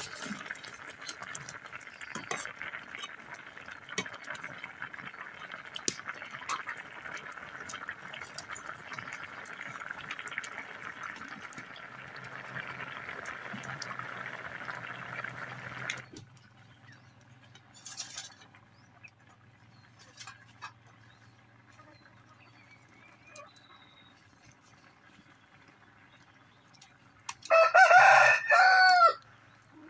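Mutton curry boiling hard in a kadai over a wood fire: a dense bubbling with many small pops, which cuts off suddenly about halfway through. Near the end a rooster crows once, loudly.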